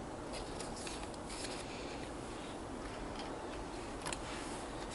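Quiet handling of clear plastic packaging: soft rustling, with a light tap about four seconds in.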